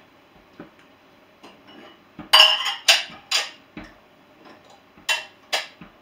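Dishes and glassware clinking and clattering as they are lifted out of an open dishwasher's racks. A few light taps come first, then a loud run of clatters about two to three and a half seconds in, then two sharp clinks near the end.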